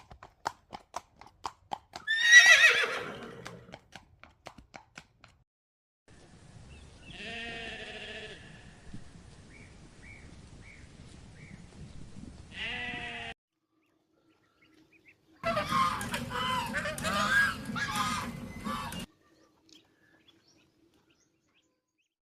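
Horse hoofbeats clopping, then a loud horse whinny that falls in pitch, followed by other farm animal calls: a few pitched bleat-like calls, then a short burst of several overlapping calls.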